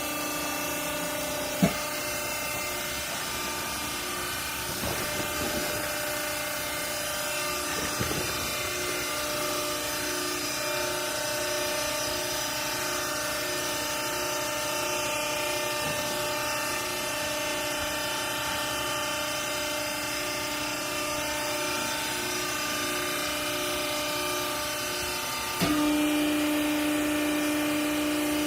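Garment baler machine running: a steady mechanical hum made of several tones, with a sharp click about two seconds in. Near the end the hum suddenly gets louder, with a strong low tone.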